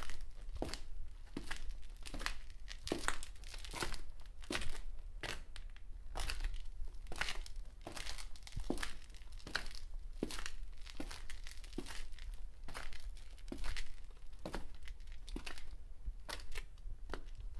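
Footsteps crunching on a loose, crackly surface at a steady walking pace, about one and a half steps a second.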